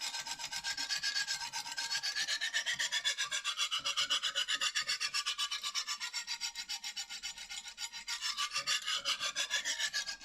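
Coarse 70-grit stone of a Lansky guided sharpening system scraping back and forth along a kitchen knife's edge, about four to five quick strokes a second, with a rasping sound. The stone is being worked dry, not yet lubricated with honing oil.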